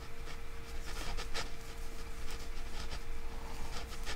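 Metal crochet hook working acrylic yarn: soft scratching and light ticks as single crochet stitches are pulled through, over a faint steady hum.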